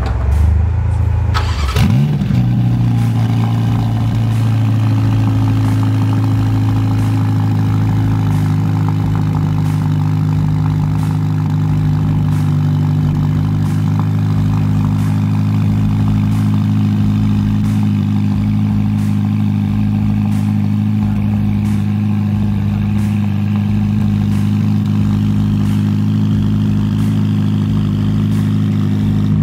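Ferrari Roma's twin-turbo V8 starting up, with a quick flare of revs about two seconds in. It then settles into a steady idle, heard from the exhaust.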